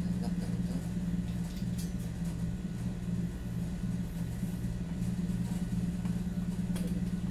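A steady low machine hum, with a few faint clicks as the microphone stand is handled.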